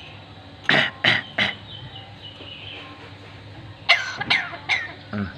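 Talking bird imitating a cough: three short coughs about a second in, then three more short, sharp coughs near four seconds and one more at the end.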